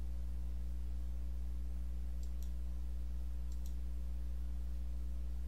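Computer mouse clicking: two quick pairs of clicks, about two and three and a half seconds in, over a steady low electrical hum.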